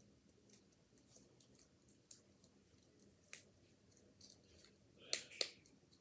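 Faint, scattered clicks and crinkles of a small plastic fidget toy and its plastic wrapping being handled, with a few sharper clicks about two and three seconds in and a quick run of them near the end.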